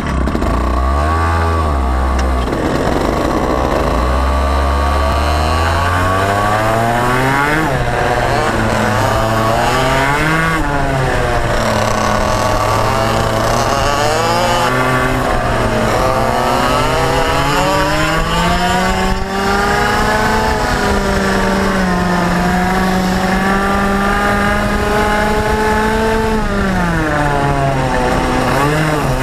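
IAME X30 125cc two-stroke kart engine heard from onboard. It runs at low, steady revs for the first few seconds, then climbs and falls in pitch again and again as the kart accelerates out of corners and lifts off into them.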